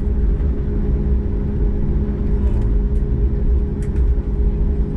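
CFM LEAP-1B turbofan engines of a Boeing 737 MAX 8 running at taxi power, heard from inside the cabin: a steady hum with two held tones over a low rumble.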